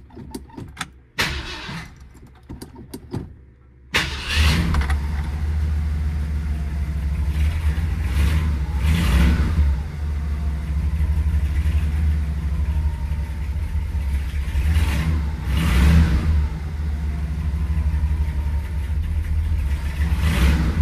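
Ford 390 cubic-inch V8 started cold: a few seconds of clicks and short bursts, then about four seconds in it fires and runs with a steady low rumble, the revs rising and falling a few times. The cold engine is reluctant to settle, which the owner calls cold-blooded.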